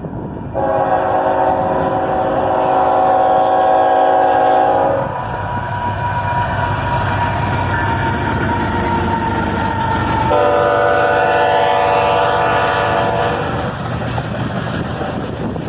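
Air horn of a GE ET44AH freight locomotive leading a train, sounding two long blasts about five seconds apart, the first a little longer than the second. Between and under the blasts is the steady rumble of the passing train.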